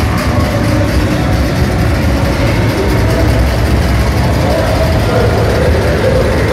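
Small dragon-themed roller coaster train running along its steel track, a loud steady rumble filling a large hall.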